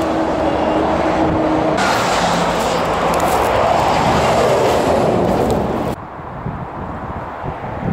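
Motor vehicle noise: a steady engine hum under a loud rush, which cuts off abruptly about six seconds in, leaving quieter, uneven outdoor sound.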